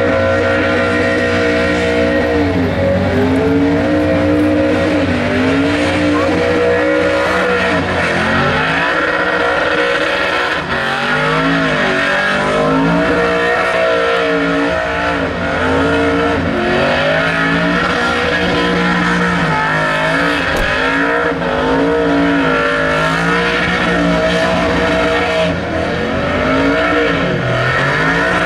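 Ford XD Falcon burnout car's engine held at high revs during a burnout, the revs repeatedly dipping and climbing back, over the squeal of its spinning rear tyres.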